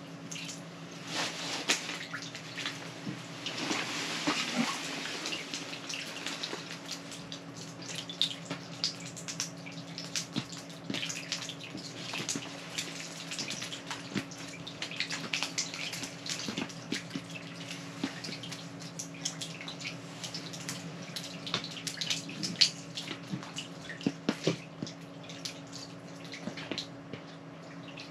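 Water splashing and dripping at an open ice-fishing hole, with many small scattered wet taps, over a steady low hum.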